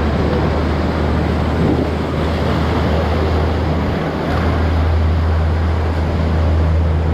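River rapids rushing loudly and steadily around a whitewater raft, with wind rumbling low on the microphone.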